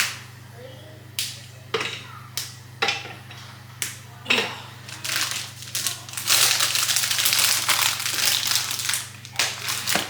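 A bar of dark baking chocolate being snapped into pieces by hand: a run of sharp cracks spaced about half a second to a second apart. Near the end comes a few seconds of dense crinkling and crackling.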